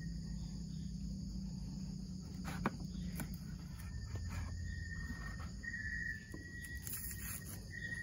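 Insects, crickets among them, trilling steadily in the grass, with a few sharp clicks of a knife cutting baby potatoes on a plastic cutting board, the loudest about two and a half seconds in.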